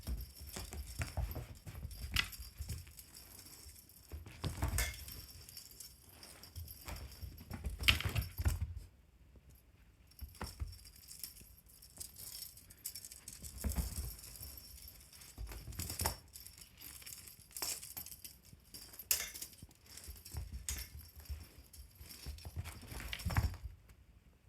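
Pets playing with a fishing-rod teaser toy: irregular thumps and scrabbling on the floor with light clinking and rattling, in clusters every few seconds.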